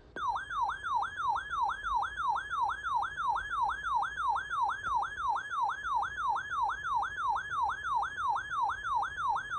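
Electronic alert siren from a weather radio receiver, warning of a severe thunderstorm: a tone sweeping downward about three times a second, repeating steadily.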